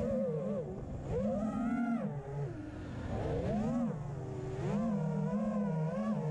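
FPV racing quadcopter's four brushless motors (T-motor F40 Pro II 2400KV) whining in flight, their pitch rising and falling again and again as the throttle is worked.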